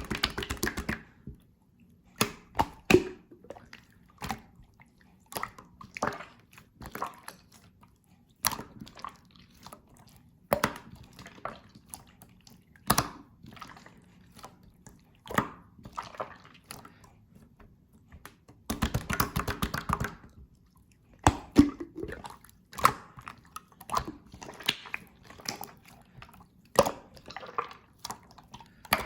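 Hands squishing, poking and stretching slime, making irregular sticky pops and clicks, with a dense run of rapid crackling pops about two-thirds in.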